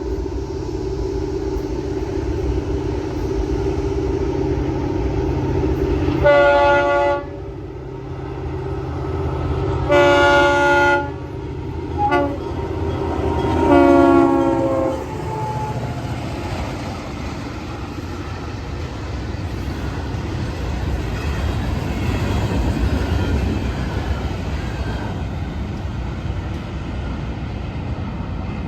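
Florida East Coast Railway freight locomotive horn sounding the grade-crossing signal, long, long, short, long. The last blast drops in pitch as the locomotive passes, and the rumble of the passing train runs underneath.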